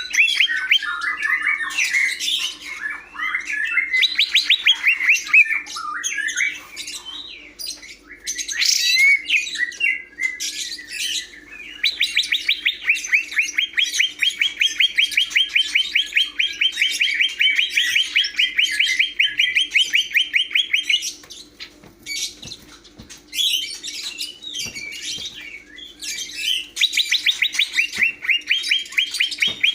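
Green leafbird (cucak hijau) singing: varied chirps and warbled phrases, then long rapid trills of evenly repeated notes lasting several seconds, twice.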